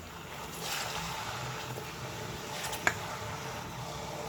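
Tomatoes sizzling in hot olive oil and onions in a cooking pot: a steady hiss that swells about half a second in, with one sharp clink near three seconds.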